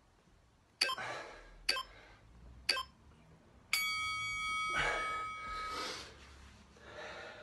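Workout interval timer counting down: three short beeps about a second apart, then a longer ringing tone about a second after the last that fades out over a couple of seconds, signalling the end of the timed push-up set.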